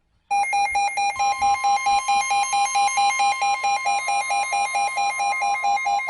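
NOAA Weather Radio alert sounding: a loud, rapid beeping alarm of about five beeps a second starts suddenly. A steady warning alarm tone joins it about a second in, signalling a new weather warning.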